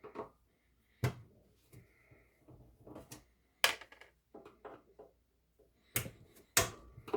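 A few sharp knocks and clunks, about four spread over several seconds, with lighter rustling and clicking between them, as the Echorec 2 tape echo unit is handled and turned over on a workbench.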